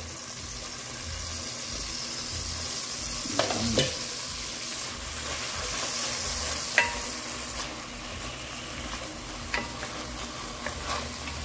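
Seasoned rice frying in oil in a pot, with a steady sizzle as it is stirred. A few sharp clicks come through, the loudest about two-thirds of the way in.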